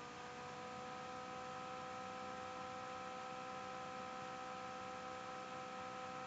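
Low, steady background hum made of a few held tones over a faint hiss; the tones rise slightly in pitch right at the start, then hold.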